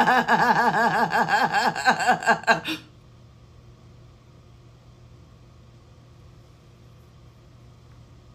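A loud pitched sound warbling rapidly up and down, about five wobbles a second, for nearly three seconds before it cuts off; after it only a faint steady low hum remains.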